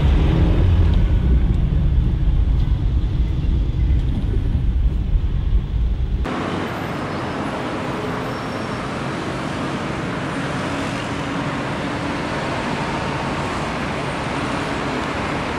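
Muffled low rumble of a car heard from inside its cabin in city traffic. About six seconds in it gives way abruptly to steady, full-range roar of dense city road traffic.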